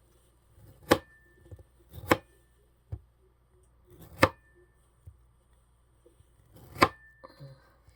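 Knife chopping kiwi fruit on a board: four sharp knocks, spaced one to two and a half seconds apart, plus a fainter tap.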